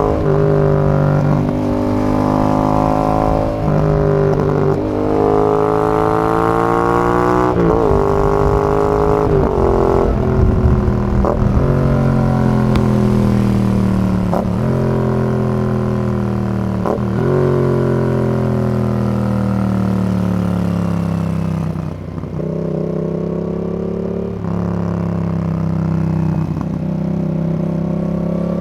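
Yamaha XSR 700's 689 cc parallel-twin engine through a Zard full exhaust system, under way. The pitch climbs, then drops sharply at each upshift, several times over. Toward the end there are stretches where the pitch falls off as the throttle closes.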